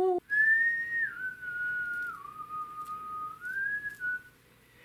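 A person whistling a slow tune: a few held notes that step down in pitch, rise again near the end, and stop about four seconds in.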